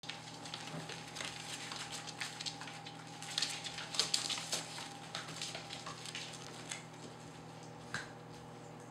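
Young xoloitzcuintle (Mexican hairless dog) puppies scrabbling at play: claws tapping and scratching on a wooden floor and a fabric throw being tugged, a run of small scratchy taps and rustles, busiest around four seconds in.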